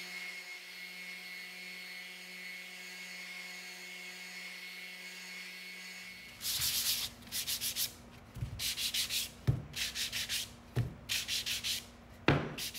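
A Ridgid random orbital sander with a dust-extraction hose runs steadily on an MDF cube, smoothing dried wood putty, then shuts off about six seconds in. Hand sanding with a sanding block follows: rapid back-and-forth scraping strokes in short runs, with a few knocks.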